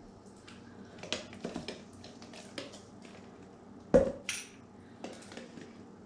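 Metal spoon scraping and tapping against a stainless steel measuring cup as mayonnaise is scooped into it: scattered light clinks, with one sharper knock about four seconds in.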